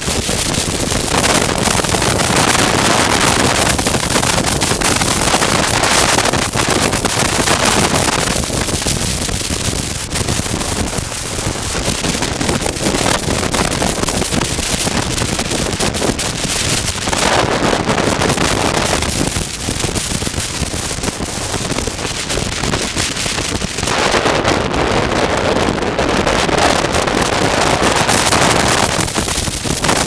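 Loud wind rush on a helmet-mounted microphone while riding a motorcycle at road speed. It swells and eases every few seconds, with the motorcycle running under it.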